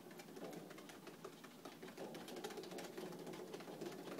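A GoPet dog treadwheel turning under a small Maltese dog's running paws: a low, steady rumble from the wheel with a quick, light patter of clicks from paws and nails on the track.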